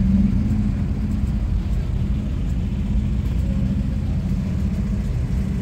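Classic cars' engines running at low revs as the cars drive slowly past one after another, a steady low engine hum with no sharp revving.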